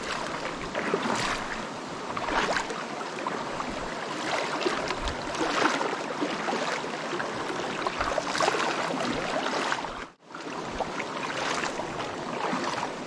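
Shallow rocky stream rushing and splashing close to the microphone, steady throughout, with a brief drop-out about ten seconds in.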